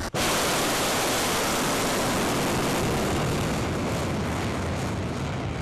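Ballistic missile's rocket motor at liftoff from a railway car and climbing away: a loud, steady rushing noise that starts abruptly just after a short break at the beginning, eases slightly and turns crackly near the end.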